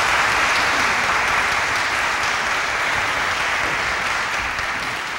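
Audience applauding, thinning out gradually toward the end.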